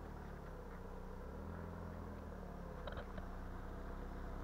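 Car engine running as a steady low hum, its pitch shifting briefly about a second and a half in, with a couple of faint clicks about three seconds in.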